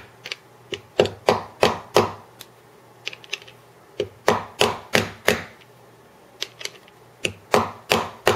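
A mallet tapping on a socket to drive a new 698-2RS ball bearing into a NutriBullet blade base, pressing only on the bearing's outer race to seat it. Sharp taps come in short runs of about three a second, with brief pauses between runs.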